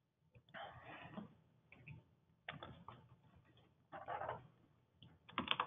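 Faint computer keyboard typing and clicking, in scattered short runs, with a quicker flurry of key clicks near the end. It comes through the narrow band of a web-conference call line.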